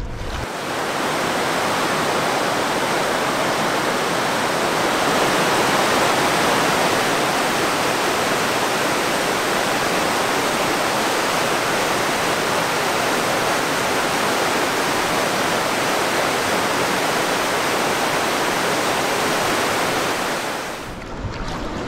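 River rapids rushing, a loud, steady sound of fast whitewater. It starts abruptly about half a second in and stops just as abruptly near the end.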